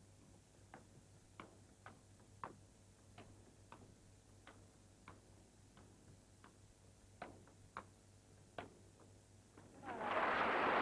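A table tennis rally: the celluloid ball clicks off bats and table about every half second over a low steady hum. About ten seconds in, a loud rush of applause rises as the point ends.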